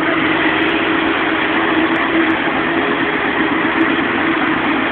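Sports car engine idling steadily, with no revving.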